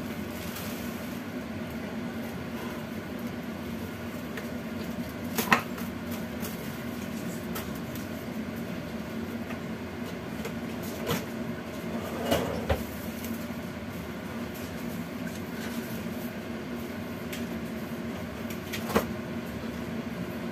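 Steady hum and hiss of a kitchen while a lidded wok cooks over a lit gas burner, with a few light knocks about five, eleven, twelve and nineteen seconds in.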